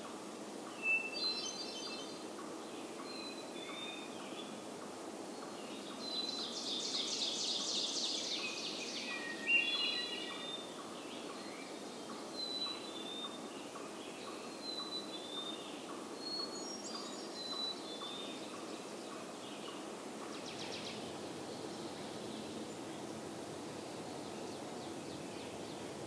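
Black-capped chickadee, hermit thrush and ovenbird singing: repeated short two-note whistles, fluty phrases and a fast ringing series of notes, the loudest song, about a quarter of the way in. A steady low background noise runs under the birds.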